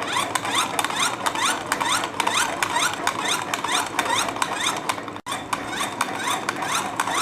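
Ben10 toy bubble gun with its trigger held, giving a rapid series of short rising electronic chirps, about five a second. The sound breaks off briefly about five seconds in.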